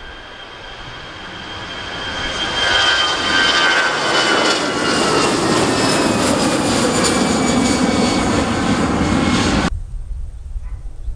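An airliner passing close by, its engine noise growing louder over the first three seconds and then holding loud, with a whine that slowly falls in pitch as it goes by. The sound cuts off suddenly near the end, leaving a low rumble.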